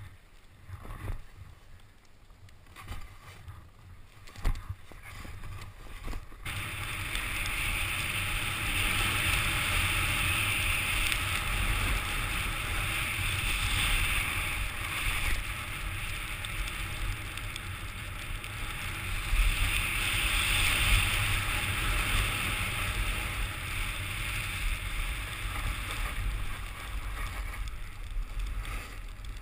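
Skis sliding over packed snow on a downhill run: quieter sliding with a few knocks at first, then about six seconds in a loud, steady scraping hiss, with wind rumbling on the microphone.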